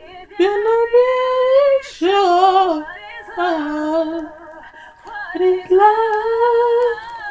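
A young woman singing long held notes with vibrato, in four phrases with short breaths between them.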